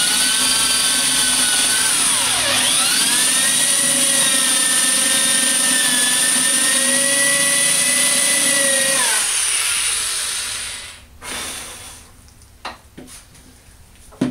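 Corded electric drill with a large bit, a little over 7/16 inch, boring an angled hole into a wooden block. The motor's whine dips briefly about two seconds in, then holds steady, and the drill winds down near the end. A few light knocks follow as it is handled.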